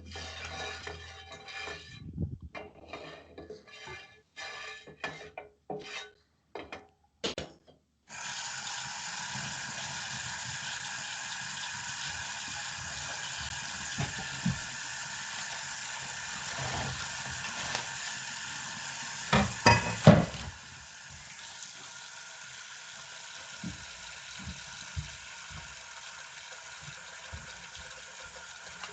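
Chicken frying in hot oil in a pan, with utensils clinking and knocking against the pan and dishes. A steady sizzle starts abruptly about eight seconds in; a cluster of sharp knocks comes about two-thirds of the way through, after which the sizzle goes on more quietly.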